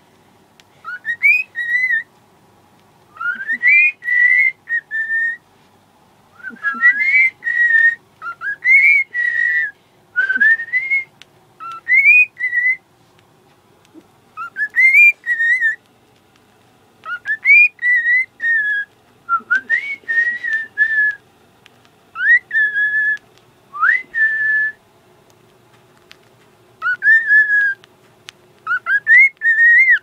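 Cockatiel whistling its song: repeated clear notes that glide upward and level off, in short phrases with brief pauses between them.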